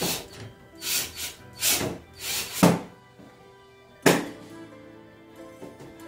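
Short scraping knocks, four in the first three seconds, as the plastic covers of a split AC's indoor unit are handled and pushed into place, then one sharp snap about four seconds in; background music plays throughout.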